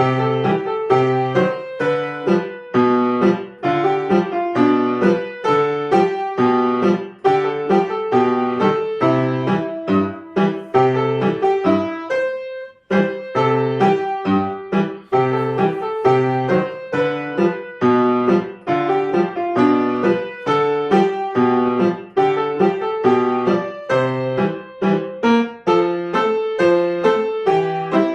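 Piano playing a piece at a steady pace, note after note, with a short pause about twelve seconds in before it carries on.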